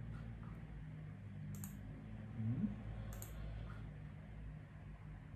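Quiet room tone with a steady low hum and a few faint, short clicks, spaced a second or more apart; a brief low sound rising in pitch comes about two and a half seconds in.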